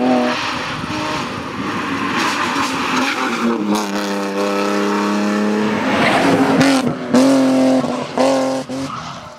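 BMW E30 rally car engine at hard throttle, its note rising and falling as the car brakes and accelerates through corners, cut by several sharp throttle lifts in the second half. Tyres squeal as the car slides through a tight bend near the end.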